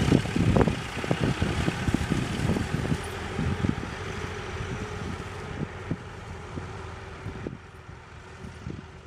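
Old car's engine running as it drives off loaded across a bumpy field, with irregular knocks and rattles, loudest at first and fading as it moves away.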